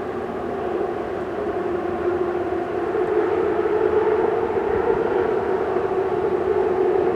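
Steady droning hum of a bridge under passing traffic, a low tone with fainter overtones that swells slightly about three seconds in.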